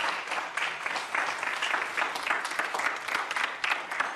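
Audience applauding after a spoken-word poem, a dense patter of many hands clapping.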